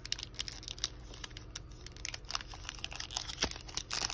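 Wrapper of a Topps Holiday baseball card pack crinkling as hands handle it and a stack of cards, in quick, irregular crackles, with a few louder ones near the end.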